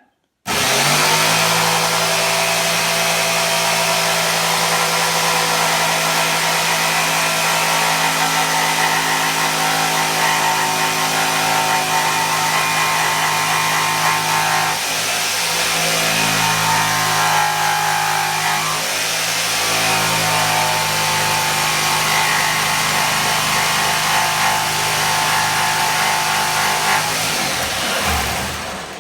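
Electric jigsaw starting abruptly and running steadily while cutting a curved shape in a wooden skirting board, its note wavering briefly a couple of times midway, then winding down and stopping near the end.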